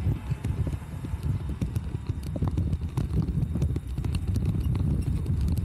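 Wind buffeting the microphone of a camera on a moving bicycle, heard as an uneven low rumble, with scattered light knocks and rattles from the bike rolling over paving stones.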